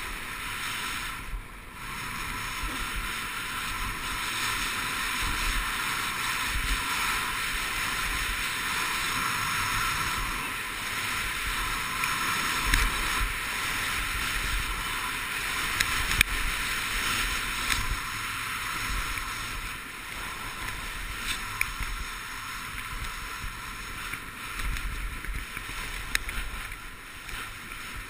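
Steady hiss and scrape of sliding fast down a groomed snow piste, mixed with wind rushing over the microphone, with a few short clicks and knocks from the snow surface.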